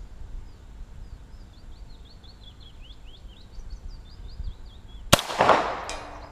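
A single shot from a Chiappa M9 .22 LR pistol about five seconds in: a sharp crack with an echo trailing for nearly a second. Before the shot, a bird sings a run of quick repeated chirps.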